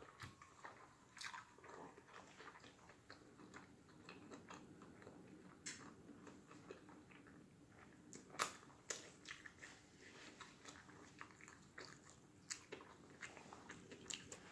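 A person chewing a mouthful of burger close to the microphone: faint wet mouth clicks and small crunches, with one louder click about eight seconds in.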